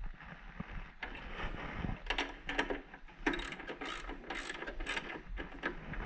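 Hand socket ratchet clicking as a nut is run down and tightened, in short ratcheting strokes: fainter at first, then a run of sharper strokes about two a second from about two seconds in.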